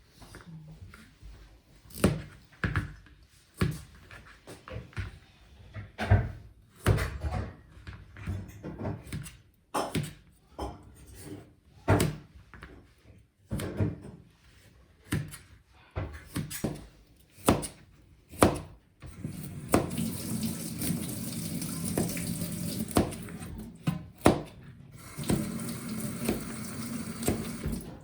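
Scattered knocks and clatter of kitchen work, then a tap running into a sink for several seconds, briefly stopping and running again near the end.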